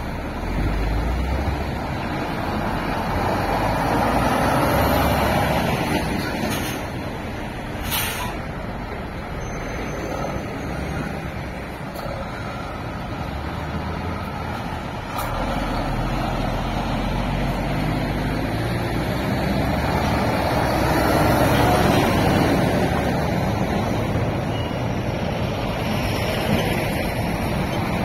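Heavy goods lorries, among them Volvo, Scania and DAF tractor units pulling tankers, driving slowly past one after another, their diesel engines running under light load and swelling as each comes nearest. A few short air-brake hisses break in.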